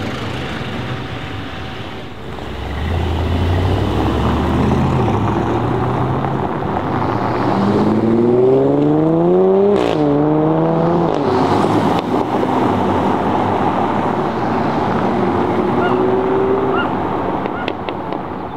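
Sports-car engines accelerating hard. A deep, loud rumble builds about two and a half seconds in as the twin-turbo V8 of a Mercedes-AMG SL63 pulls away. Later an engine revs up in rising pitch, dips sharply at a gear change near the middle, and climbs again.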